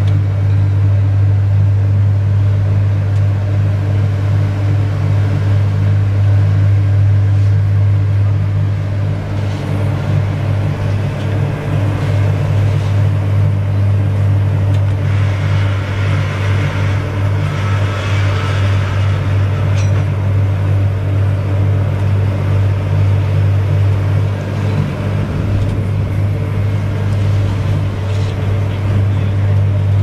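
Slipform concrete paver running steadily: a constant deep machine hum, with a rougher hiss rising for a few seconds around the middle.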